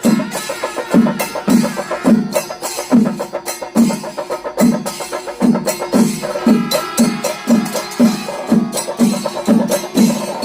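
Chenda melam: a Kerala temple percussion ensemble of chenda drums with ilathalam cymbals, playing a steady, driving beat of about two to three strokes a second that quickens slightly near the end.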